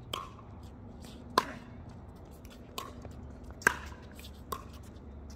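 Pickleball rally: sharp pops of paddles hitting the perforated plastic ball, five knocks in under five seconds, the two loudest about a second and a half in and a little past halfway.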